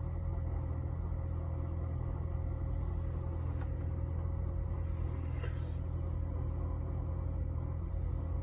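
2022 Ford Bronco Badlands with the seven-speed manual transmission, idling in neutral with a steady grinding drone and a constant thin whine over it. This is the grinding noise that the owner is complaining of.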